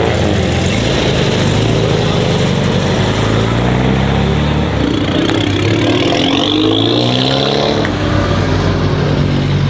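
Classic Volkswagen Beetle's air-cooled flat-four engine revving as the car accelerates away, its pitch rising in several sweeps, the strongest about five to eight seconds in.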